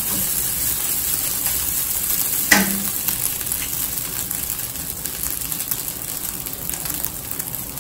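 Rice frying in a nonstick pan: a steady sizzle with a wooden spatula scraping and stirring, and one sharp knock about two and a half seconds in. After that the stirring stops and the sizzle goes on a little quieter.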